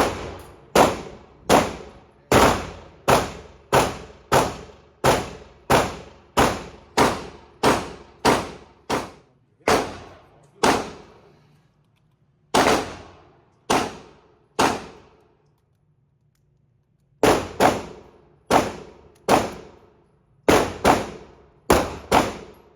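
Handgun shots in an indoor range, fired in steady strings about one every 0.7 s, each crack followed by a short echo off the walls. The firing pauses about 11 s in and stops for about two seconds around 15 s in before resuming.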